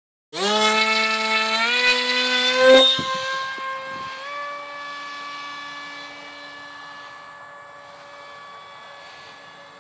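Electric RC model jet's motor and 6x4 propeller whining as the throttle is opened in steps, the pitch climbing until a loud peak about three seconds in. The whine then holds a steady, higher pitch and slowly fades as the plane flies away.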